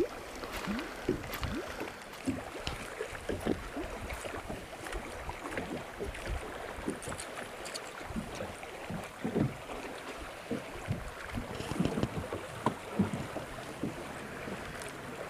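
Small waves lapping and slapping irregularly against the hull of a bass boat.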